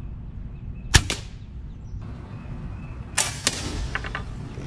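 Sharp crack of a pre-charged AirForce air rifle firing once about a second in, during sighting-in of the scope. Two more sharp cracks follow a little past the middle, then a few light clicks.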